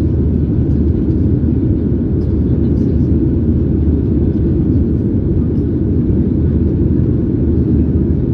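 Steady low roar inside the cabin of a Boeing 737-800 in flight: its CFM56-7B engines and the air rushing past the fuselage, with no change in pitch or level.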